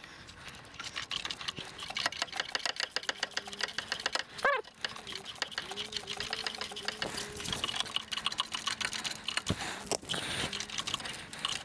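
Socket ratchet clicking rapidly and steadily as it is worked back and forth, bolting in a new serpentine belt tensioner.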